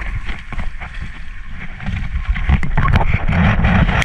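Wind buffeting the microphone and water rushing and slapping against the hull of an RS600 sailing dinghy under way. The sound grows louder from about two seconds in.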